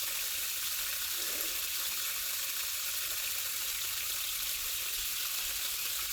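Steady hiss of water running from an opened tap on a well system, drawing the pressure down before the pressure switch kicks the pump on.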